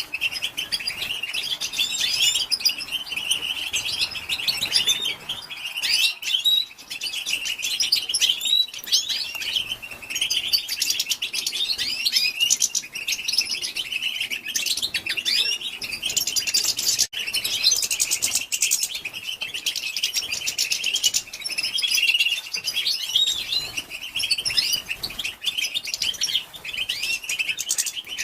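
Female European goldfinch chattering: a continuous stream of fast, high twittering notes, the call used to stir male goldfinches into singing.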